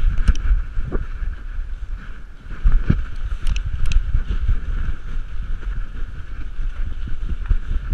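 Handling noise from a GoPro Hero on a running dog's chest harness: a dense, irregular low rumble of thumps and rubbing as the dog runs and turns, with a few sharp clicks about three and a half seconds in.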